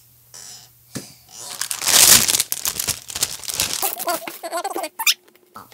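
Clear plastic bag crinkling as a foam squishy toy is pulled out of it and the bag is lifted. The crinkling is loudest about two seconds in.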